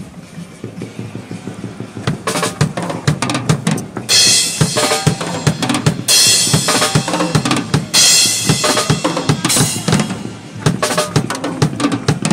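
Live drum kit played hard: rapid snare and bass drum strikes start about two seconds in and stay dense. Several long, loud, bright stretches through the middle sound like cymbals washing over the beat.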